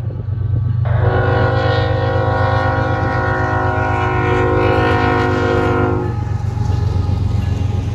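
Diesel freight locomotive's multi-chime air horn sounding one long blast, several pitches at once, starting about a second in and cutting off near six seconds. A steady low rumble from the locomotives runs under it. The blast is one of the long blasts sounded for the grade crossing.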